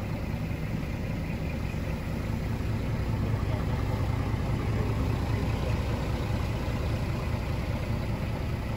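Scania R124 470 truck's 12-litre inline-six diesel idling steadily, a low even rumble heard from inside the cab.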